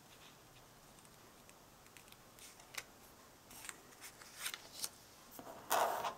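Soft clicks and rustles of small cardstock pieces being handled and pressed together, a few scattered ticks from about three seconds in, then a louder, longer rustle of paper on the cutting mat near the end.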